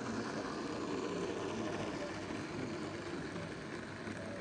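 Model diesel railcar running along the track with a steady mechanical whirr from its motor and wheels.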